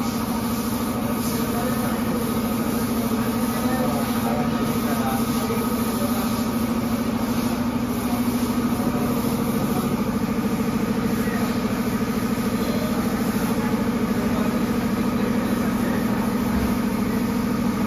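Steady hum of a motor or engine running at a constant speed.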